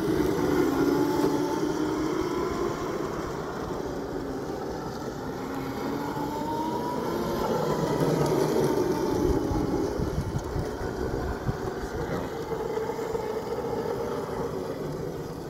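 Electric drift cart's motor whining, its pitch rising and falling as the cart speeds up and slows through turns, with its small wheels rumbling on asphalt and wind buffeting the microphone.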